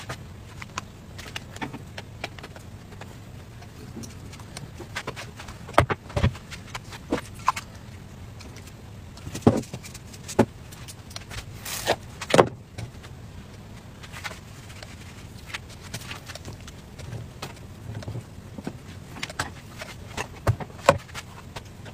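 Handling sounds of an electric dip-style crepe maker and thin crepe wrappers: scattered light clicks and knocks as the pan is set down and lifted and crepes are laid on the board, with a short rustling hiss about halfway through, over a steady low hum.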